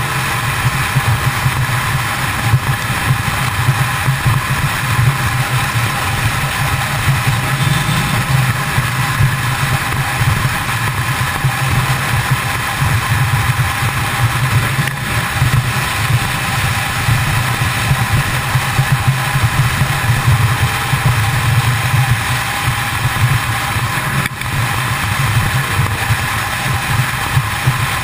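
Kawasaki ZX-10R's inline-four engine running steadily at highway cruising speed, under a constant rush of wind and road noise.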